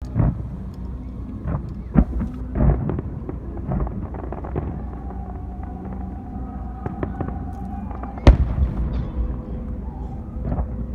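Fireworks shells bursting in an irregular string of bangs and crackles over a low rumble, with the loudest burst about eight seconds in.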